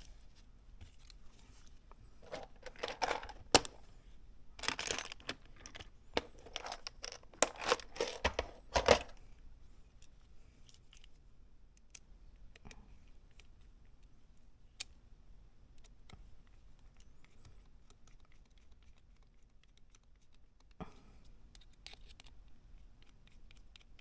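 Hands working small model-car parts: several bursts of scraping and crinkling with sharp clicks in the first nine seconds, then mostly quiet with a few scattered light ticks and a short rustle near the end.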